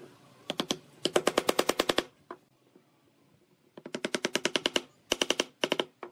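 Wooden mallet knocking a pine board down into the groove of a wooden base, wood on wood: quick runs of light knocks, about ten a second, in three spells with short pauses between.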